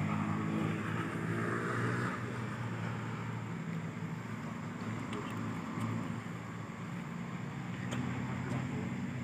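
Engine running with a steady low hum, loudest in the first two seconds, when a rushing hiss rises with it.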